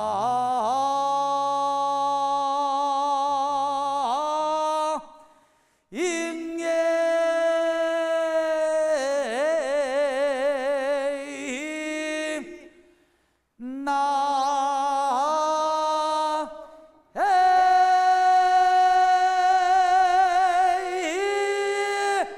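A single voice singing a Korean folk field-work song, a weeding song, unaccompanied, in four long drawn-out phrases with a wide wavering vibrato, separated by short breaths.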